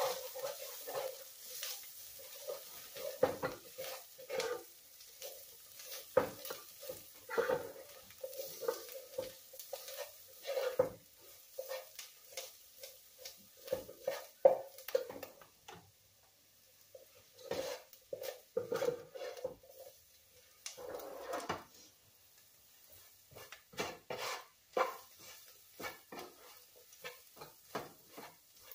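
A spoon scraping and stirring onions, garlic and ground spices around a soup pot in irregular strokes, with a light sizzle under it as the spices toast. It goes briefly quiet about halfway through, then the stirring starts again.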